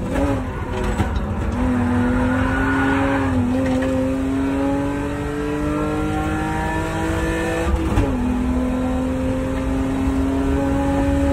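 Competition car's engine heard from inside the stripped cabin, pulling hard with its pitch climbing steadily. About eight seconds in the pitch drops sharply as it shifts up a gear, then it climbs again.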